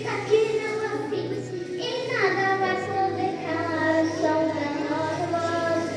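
A young voice singing a song over a karaoke backing track, with a quick downward slide in pitch about two seconds in.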